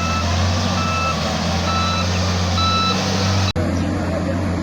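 A heavy vehicle's reversing alarm beeping, short beeps of one pitch about once a second, over the steady low drone of a running engine. The beeps stop abruptly about three and a half seconds in, and the engine drone continues.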